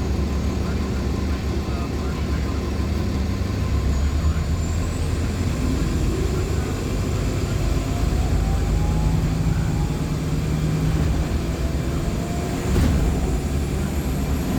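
Cabin sound of a Nova Bus LFS articulated hybrid bus underway: the steady low rumble of its Cummins ISL9 diesel and Allison hybrid drive, with a faint rising whine through the middle and a single knock near the end.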